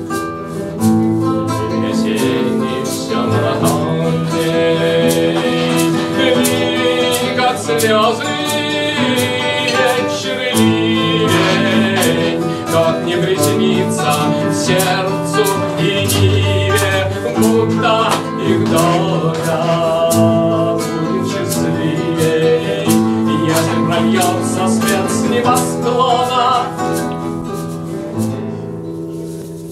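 Live acoustic band music: nylon-string guitars strummed and a man singing held, wavering notes, with sharp percussion hits keeping a beat. The music drops in level near the end.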